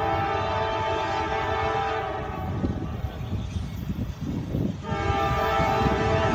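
CSX freight train's locomotive air horn sounding as it approaches: one blast that breaks off about two and a half seconds in, then a second blast starting about two seconds later. A steady low rumble of the train runs underneath.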